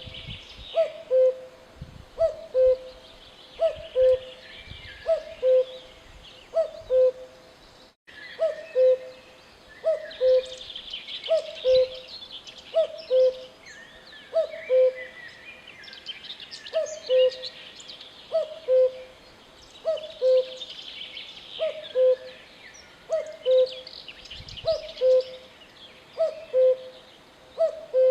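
Common cuckoo calling its two-note "cu-coo", a higher note falling to a lower one, repeated about every one and a half seconds. Other small birds chirp and twitter in the background.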